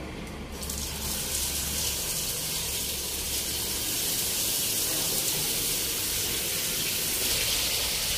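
Marinated chicken pieces going into well-heated oil in a frying pan and sizzling. The sizzle starts about half a second in, grows louder over the next couple of seconds as more pieces go in, then holds steady.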